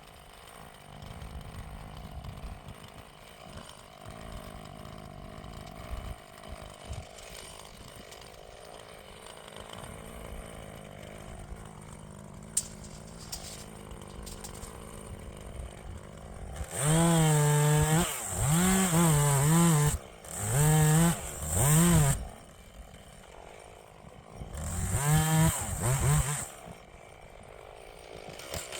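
Two-stroke chainsaw revving and cutting in bursts: one cut of several seconds starting about 17 s in, then a shorter one a few seconds later, its pitch dipping and rising as it works through the wood. Before the cuts there is a steady low engine hum.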